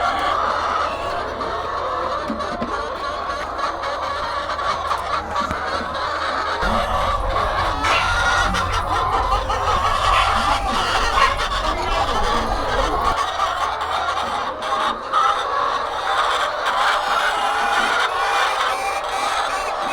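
A flock of hens clucking and calling all at once, a dense unbroken chatter of overlapping calls. A low hum sits underneath from about a third of the way in to about two-thirds of the way through.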